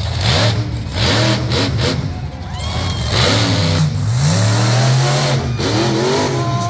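Monster truck engine revving hard over and over, rising and falling, then held high for about a second before dropping off as the truck goes airborne off a jump.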